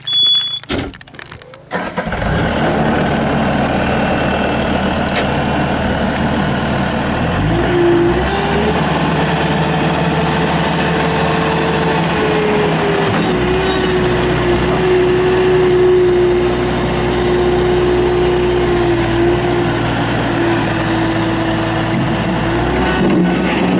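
Bobcat S250 skid steer's Kubota diesel engine started: a short high beep and clicks, then the engine catches about two seconds in and runs steadily. About seven seconds in, a whine rises in pitch and then holds steady.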